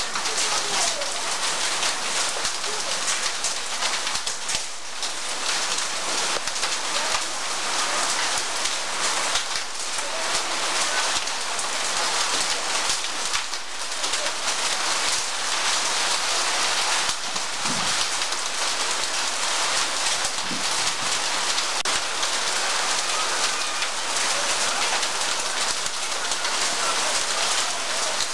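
Rain falling onto wet concrete ground and puddles: a steady hiss of splashing drops.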